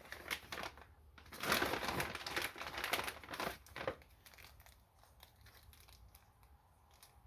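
Packaging crinkling and rustling as the items of a tire repair kit are handled, busiest in the first four seconds, then dying down to faint handling noise.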